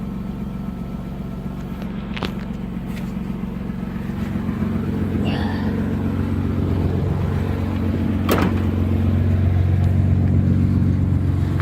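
1986 BMW 325's 2.7-litre straight-six idling steadily just after a hard start from three weeks of sitting, gradually growing louder. A couple of sharp clicks sound over the idle, about two seconds in and again about eight seconds in.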